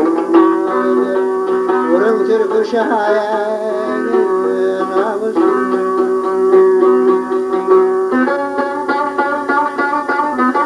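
Instrumental break of a Turkish folk song (türkü), with plucked string instruments carrying an ornamented melody over steady held notes.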